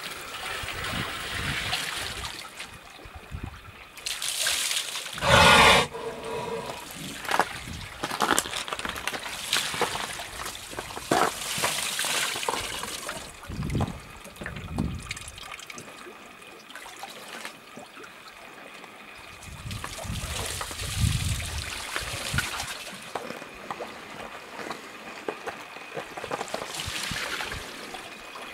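Seawater trickling and splashing as it is poured from a hose and a tipped bin over a stranded orca and the rocks around it. The loudest sound is a short rush of noise about five seconds in.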